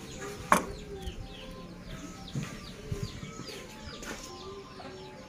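Chickens clucking, with many short, high, falling bird chirps repeating throughout. A sharp click about half a second in is the loudest sound, and a few softer knocks follow around two and three seconds in.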